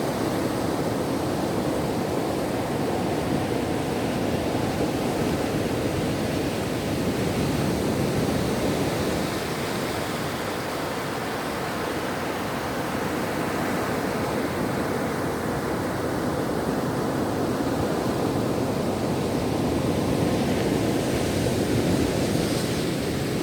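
Ocean surf breaking and washing onto a beach in a continuous rush, swelling and easing slowly in waves.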